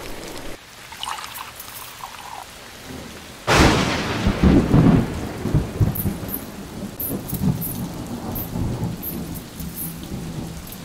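A sudden thunderclap about three and a half seconds in, rumbling on for several seconds over steady rain.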